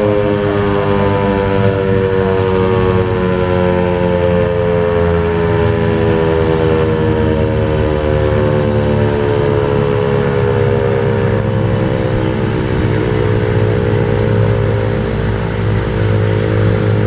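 American Signal T-128 rotating outdoor warning siren winding down, its chord of tones falling slowly and steadily in pitch. A steady low rumble runs underneath.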